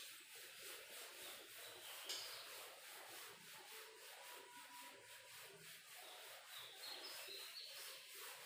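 Faint rubbing of a whiteboard duster wiping marker ink off a whiteboard.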